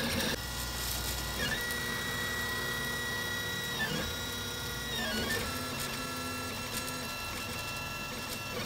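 Velleman K8200 3D printer printing: its stepper motors whine in steady tones that dip and shift to a new pitch each time the print head changes move, about four times.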